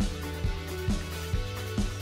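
Background music with a steady kick-drum beat, a little over two beats a second.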